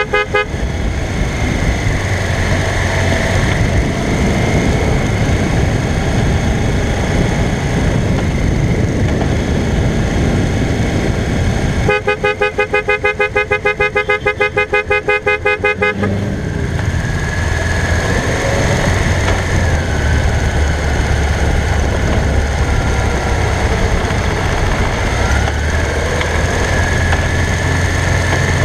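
Honda CBX750's inline-four engine running at road speed, with heavy wind noise on the bike-mounted microphone. About twelve seconds in, a horn beeps in quick pulses, about six a second, for some four seconds.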